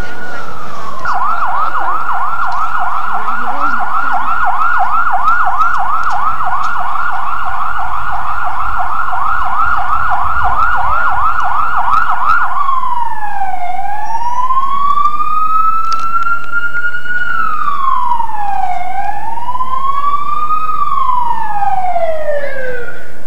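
A siren, first yelping with fast repeated sweeps, about three a second, then switching about halfway through to a slow wail that rises and falls every few seconds.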